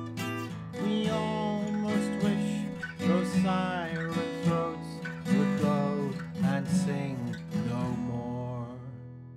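Steel-string acoustic guitar playing a slow closing instrumental passage: held low chords with plucked melody notes that slide up and down in pitch above them. The playing dies away near the end.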